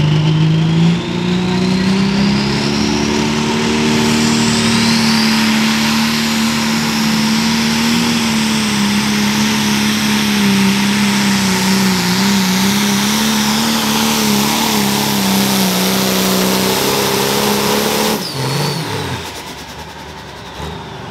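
Turbocharged diesel engine of a John Deere 4560 pro stock pulling tractor run at full throttle under load while dragging the pulling sled. The revs climb in the first second, then hold high and steady with slight wavering. About three seconds before the end the engine is throttled down sharply as the pull ends.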